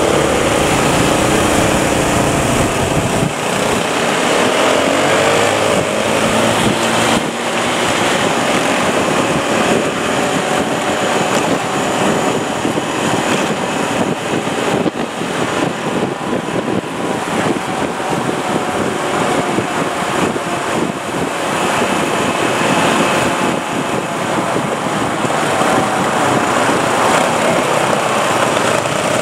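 Several motorcycles riding at speed, heard from on board one of them: engines running under a steady rush of road and wind noise, the engine pitch rising and falling in the first few seconds.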